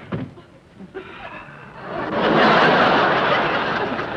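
Studio audience breaking into laughter about two seconds in, a broad swell that slowly fades.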